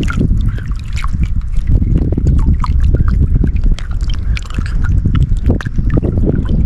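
Wind buffeting the microphone in a heavy, uneven low rumble, with water splashing and lapping close by in many small sharp ticks.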